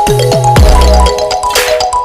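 Background music: an electronic beat with a bright, stepping melody of short notes over deep bass notes that slide down in pitch, with quick ticking hi-hats and a rising noise swell near the end.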